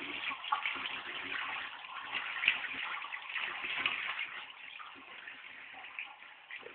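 Water running and splashing from a handheld shower over a bent-over person's head, an uneven hiss that eases off in the last couple of seconds.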